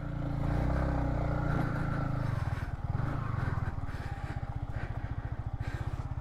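Yamaha MT-15's single-cylinder motorcycle engine running, then settling to a steady idle about two and a half seconds in.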